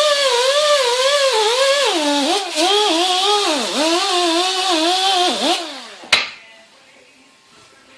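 Electric power tool running under varying load, its pitch repeatedly dipping and rising as it bears on the work. It winds down and stops about five and a half seconds in, and a single sharp click follows.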